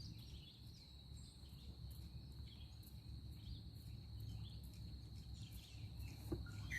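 Faint outdoor ambience: a steady high-pitched insect drone, with scattered faint bird chirps over a low background rumble.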